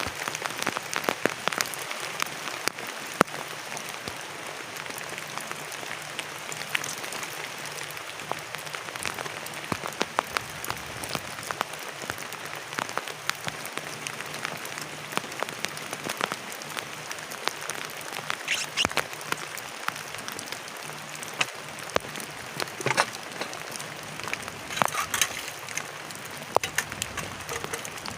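Heavy rain falling on a plastic tarp shelter: a steady hiss with many sharp drop hits, with a few thicker clusters of hits in the second half.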